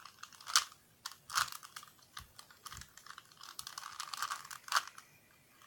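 Plastic Rubik's Cube faces being twisted by hand through a sequence of turns, a string of irregular clicks and clacks.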